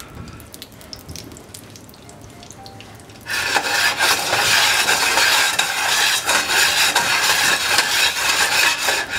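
Clarified butter sizzling faintly in a nonstick skillet on an electric coil burner. About three seconds in, a loud, uneven scraping rub starts as the skillet is swirled and slid around on the coil.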